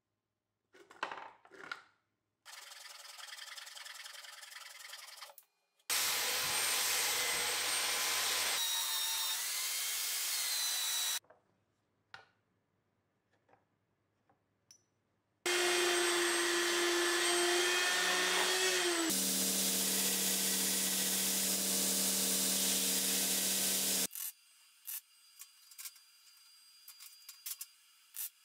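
Woodworking power tools cutting into wood in several separate runs of a few seconds each, some with a steady motor hum. Quiet gaps fall between the runs, and short clicks and taps come at the start and near the end.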